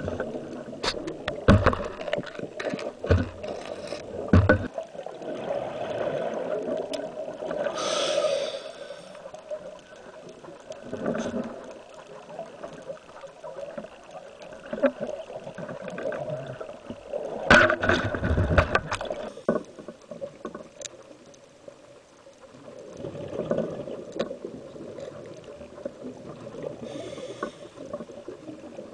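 Underwater sound on a scuba dive: bursts of exhaled bubbles from a diver's regulator every several seconds, over a steady low hum. Sharp clicks and knocks come in the first few seconds.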